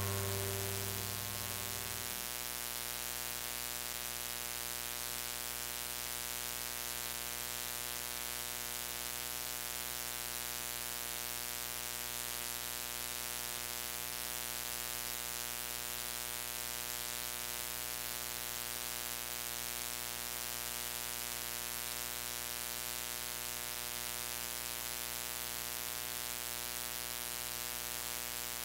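Steady electrical buzz and hiss, the noise floor of a poor-quality audio feed. The last notes of a keyboard fade out in the first two seconds.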